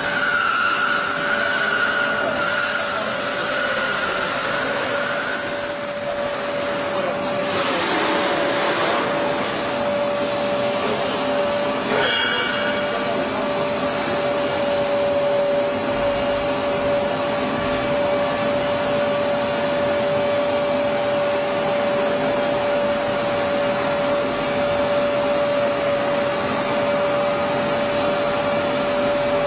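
Wood-cutting CNC router running, with a steady whine from the spindle over a continuous rushing noise. Higher tones come and go in the first several seconds, and there is a short click about twelve seconds in.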